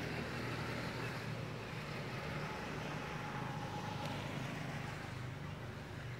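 A motor vehicle passing on a road: a steady rush of engine and tyre noise that eases off near the end.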